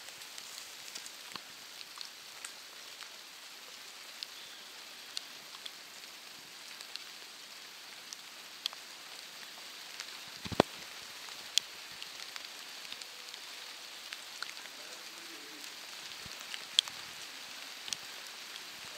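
Steady rain, with irregular sharp taps and drips of drops landing close by; the loudest tap comes about ten seconds in.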